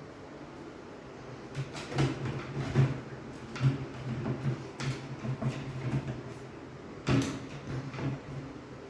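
A series of sharp knocks and clicks in a small room, like doors or cupboards being handled, over a faint low hum. The knocks come in a cluster for a few seconds, then another comes near the end.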